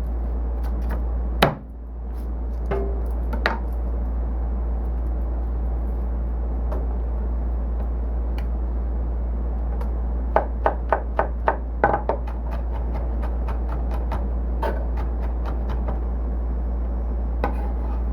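Knife chopping garlic on a cutting board: scattered single strokes, then a quick run of about seven chops about ten seconds in, over a steady low hum.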